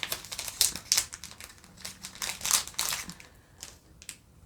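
Foil trading-card booster pack wrapper crinkling and crackling in the hands as it is opened. The crackling dies down about three seconds in, leaving a couple of light ticks.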